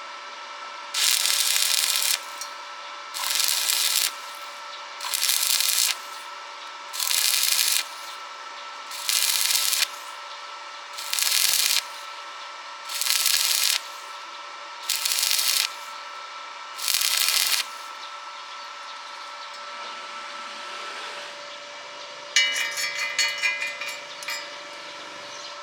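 Stick welding arc struck and broken again and again: nine hissing, crackling bursts of about a second each, about two seconds apart, over a faint steady hum. A burst of rapid ticking follows near the end.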